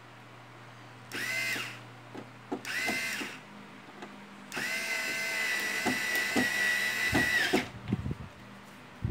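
Cordless electric screwdriver running in three bursts at a steady pitch, a short one about a second in, another about three seconds in, then a longer run of about three seconds, driving in the screws that mount a circuit board on a TV's metal chassis. Light clicks and knocks of handling follow near the end.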